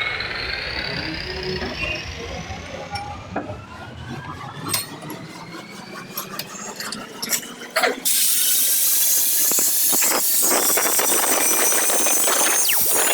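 Electric hand angle grinder, rigged with a washing-machine spindle as a makeshift milling machine, running with a whine and a few clicks. About eight seconds in, a much louder, harsh grinding and squealing starts and holds as the cutter works the material.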